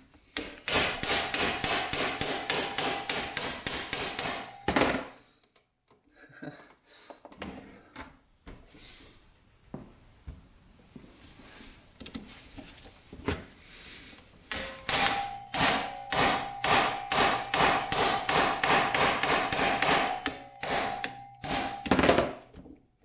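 Hammer beating on a manual hand impact driver set in the corroded, seized screws of a Honda XR100 engine case cover, metal on metal with a ringing note. Two long runs of rapid blows, about five a second, with lighter scattered knocks between them and a few last strikes near the end.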